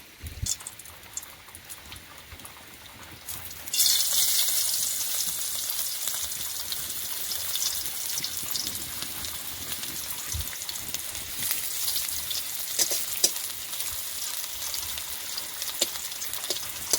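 Small fish frying in hot oil in a pan. A few faint clicks at first, then a loud sizzle starts suddenly about four seconds in and carries on steadily with crackling pops.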